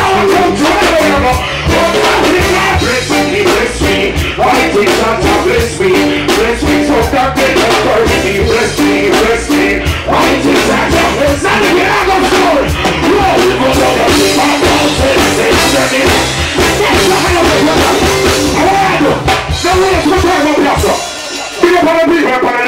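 Live reggae band with drum kit and electric guitars playing while a male vocalist sings into a microphone. The band drops out briefly near the end.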